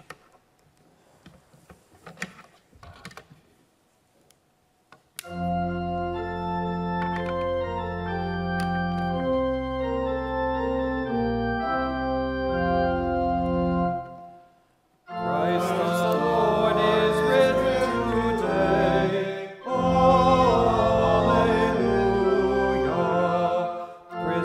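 Church organ playing a hymn: after a few seconds of faint small sounds, it comes in about five seconds in with held chords, breaks off briefly around fourteen seconds, then resumes fuller and busier.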